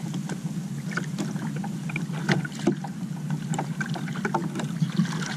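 Water sloshing against the hull of a small outrigger canoe, with a steady low rumble of wind on the microphone and scattered light clicks and knocks.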